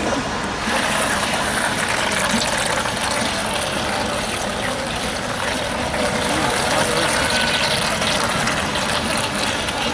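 Steady rushing noise of choppy open water.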